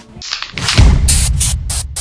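A loud burst of static-like noise that swells in with a deep rumble under it, then breaks into rapid choppy stutters: a glitch sound effect in a studio logo sting.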